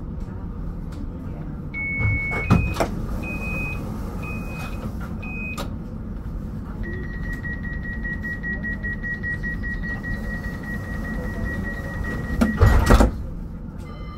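CAF Urbos tram standing with a steady low hum. Several short electronic beeps are followed by a long pulsing warning tone lasting about six seconds, which ends in a heavy clunk and rattle near the end: the door warning signal and the doors closing.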